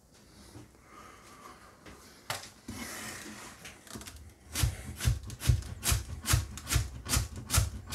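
Japanese nakiri knife shredding cabbage on a cutting board: after a few seconds of quieter rubbing and handling, quick even chopping strokes start about four and a half seconds in, about three a second.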